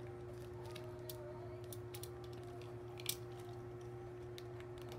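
Yellow utility knife slitting packing tape and cardboard on a shipping box: scattered crackles and clicks, with one sharper click about three seconds in, over a low steady drone.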